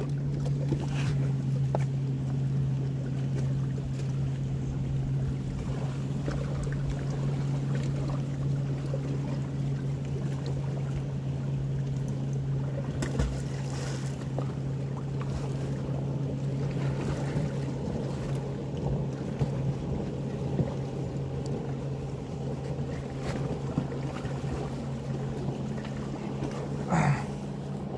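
A boat's motor running with a steady low hum, with a few small knocks and clicks over it.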